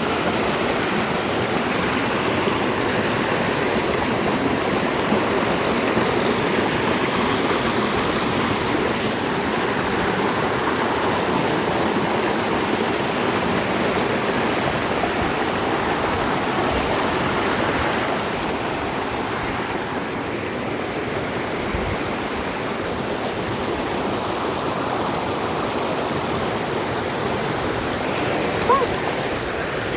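Valley stream rushing, a steady full wash of water that eases a little after about eighteen seconds. A brief short chirp comes near the end.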